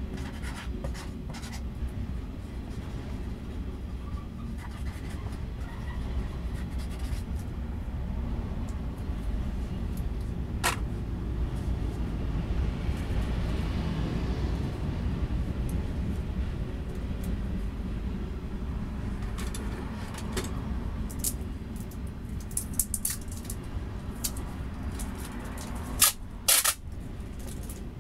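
Freight train of autorack cars rolling past: a steady low rumble of wheels on rail. There is a brief screech about ten seconds in and a cluster of sharp clicks and knocks near the end.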